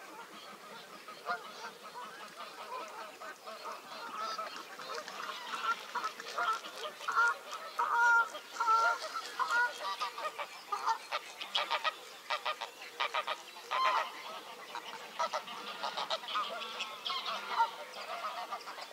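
A flock of Canada and greylag geese honking, many birds calling over one another in short repeated honks, building up after about a second and busiest through the middle.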